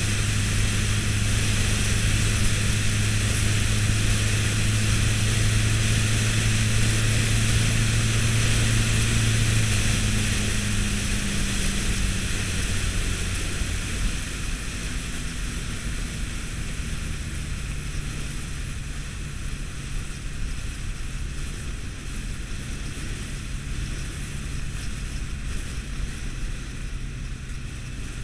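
Wind rushing over a bike-mounted camera's microphone with the steady drone of a Honda ST1300 Pan European's V4 engine at motorway cruising speed. About halfway through, the engine drone becomes quieter and changes pitch.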